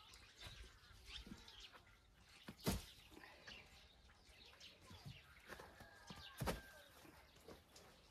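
Firewood logs knocking as they are stacked onto a woodpile: two sharp wooden knocks about four seconds apart, with faint bird chirps between them.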